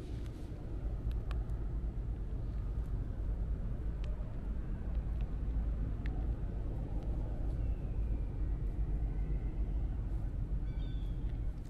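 Steady low outdoor rumble, with a few faint clicks and faint high chirps in the second half.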